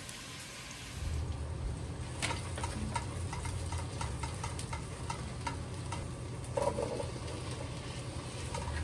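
Meat and onions frying in a stainless steel pot, stirred with a spatula that taps and scrapes against the pot many times, over a low steady hum. Near the end chopped carrots and sweet potato are tipped into the pot.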